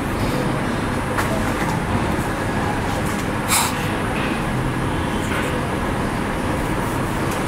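Steady background traffic noise with a few short, sharp sounds, the clearest about three and a half seconds in.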